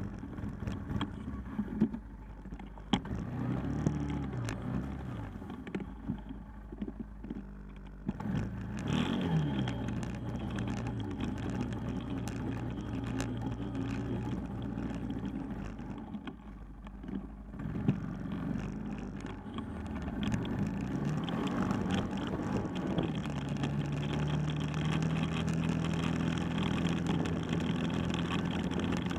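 ATV (four-wheeler) engine running under way, revving up and down several times and then holding a steadier, higher pitch near the end. A few sharp knocks come through along the way.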